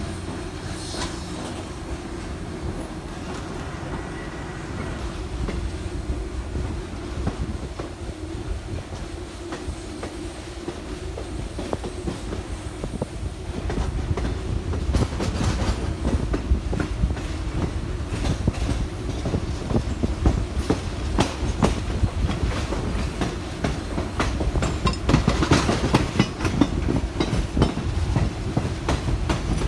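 Railroad car wheels rolling over rail joints: a steady rumble with clickety-clack. The clacking grows louder and more frequent from about halfway through.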